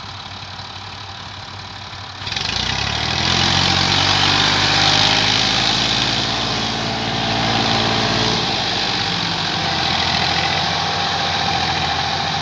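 Massey Ferguson 135 tractor engine running, then revving up sharply about two seconds in as it pulls away under the heavy load of an overloaded sack trolley. The engine note shifts again around eight seconds in.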